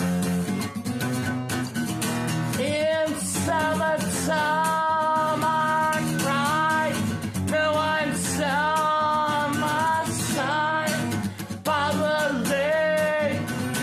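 Acoustic guitar strummed in chords, joined about three seconds in by a singing voice that glides between notes and holds them in phrases.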